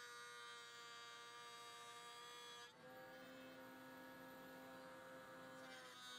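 Bosch router in a Rockler router table running with a faint, steady hum-like whine. The tone shifts abruptly about two and a half seconds in and again near the end.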